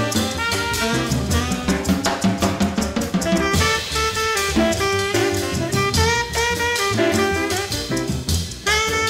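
1957 bebop small-group jazz recording: a saxophone plays a melodic line over drum kit and bass.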